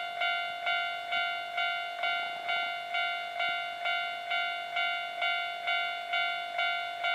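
Japanese railway level-crossing warning bell ringing an even, repeated ding a little over twice a second, each stroke fading before the next. It is the crossing's warning that a train is approaching or passing.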